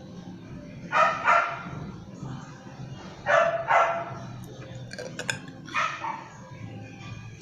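A dog barking in short pairs: two barks about a second in, two more just past three seconds, and one near six seconds. A few sharp clicks come in between.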